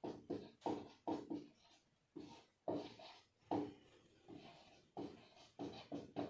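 Marker pen writing on a whiteboard: a quick string of short strokes, two or three a second, as letters are drawn.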